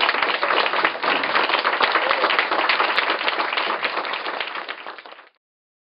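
Small audience applauding, a dense patter of many hands clapping that thins out and is then cut off abruptly about five seconds in.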